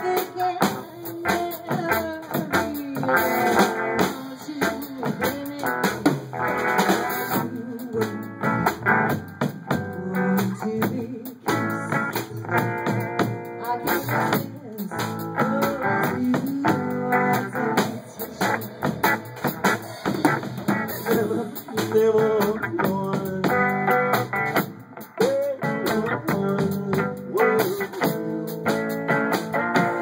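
Live swing band playing: a woman singing over upright bass, electric guitar and drums.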